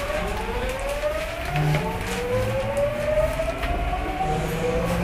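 Tokyu 9000 series electric train heard from inside the passenger car, its traction motors' inverter whine rising steadily in pitch as the train picks up speed, over a low running rumble.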